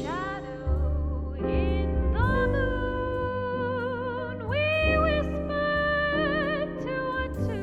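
A high voice sings a slow melody in long held notes with a wide vibrato, over low sustained instrumental accompaniment.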